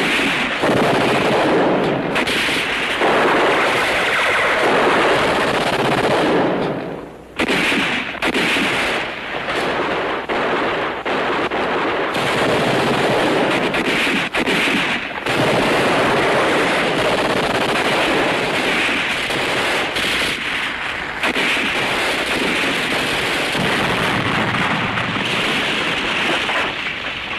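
Sustained battle gunfire: rapid machine-gun and rifle fire, nearly continuous, with brief lulls about 2 and 7 seconds in.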